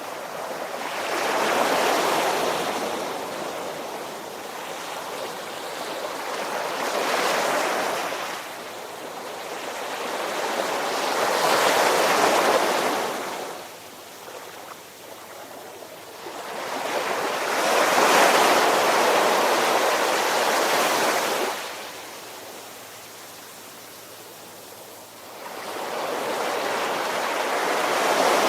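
Ocean surf: waves washing in and drawing back in slow swells, five in a row, each rising over a second or two and then fading, with a quieter lull of several seconds before the last one.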